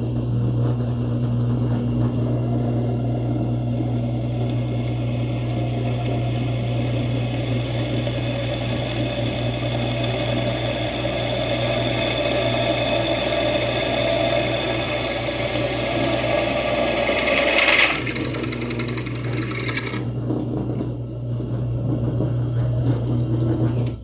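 Homemade drill press driven by a washing-machine motor, running steadily while an 8 mm bit drills through a 5 mm iron plate. About three-quarters of the way through, the bit gives a high squeal with rattling for about two seconds. The motor runs on without stalling under the thick bit.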